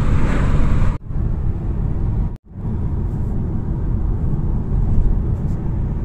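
Steady low rumble of road and wind noise heard from inside a moving car, cut off abruptly for a moment twice, about a second in and again a second and a half later.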